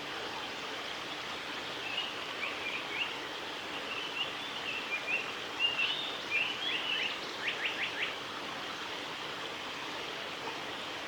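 Female Japanese paradise flycatcher singing: a phrase of short chirping notes starting about two seconds in, ending with four quick sweeping notes a little past the middle.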